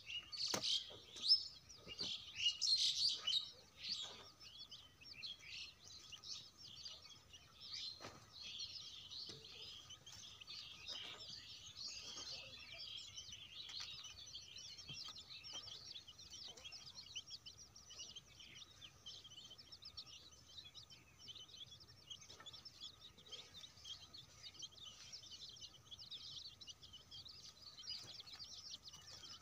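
Many small birds chirping and twittering without pause. Over the first dozen seconds, a hoe blade strikes the dry earth again and again, each strike a sharp thud; the loudest comes about a second in.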